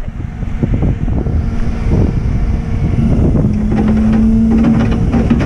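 Engine running steadily, with wind buffeting the microphone; a steady whine joins it about three and a half seconds in.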